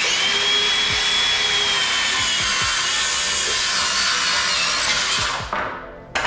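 Handheld circular saw cutting through a 2x4 pine board, running steadily with a high whine for about five seconds, then winding down as the cut finishes.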